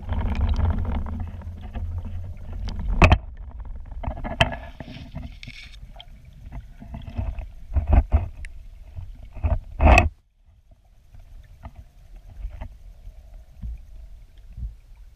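Muffled low rumble of river water below a weir, heard from a camera under water in its waterproof housing. Several sharp knocks and bumps come in the first ten seconds as the housing settles on the stony riverbed. After about ten seconds the knocks stop and only a fainter low rumble remains.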